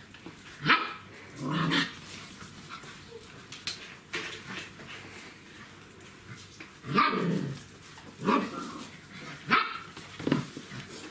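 Czechoslovakian wolfdog puppies barking and yapping, about seven short barks at uneven intervals.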